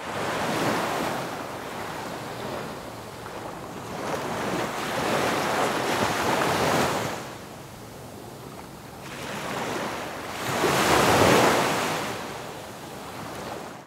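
A rushing noise, with no pitch to it, that swells and fades three times, about five seconds apart, and cuts off suddenly at the end.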